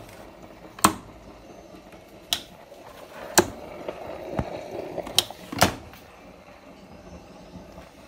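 Hotpoint front-loading washing machine during a wash, with a low steady background and about five sharp knocks and clicks spread through, and a rougher churning noise in the middle.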